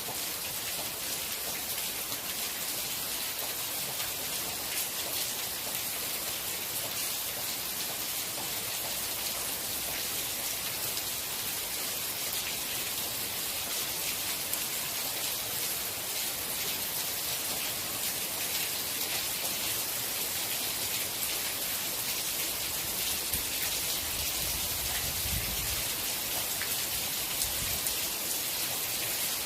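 Steady rain falling, a dense even hiss with fine patter of individual drops striking a surface. A soft low rumble comes in briefly near the end.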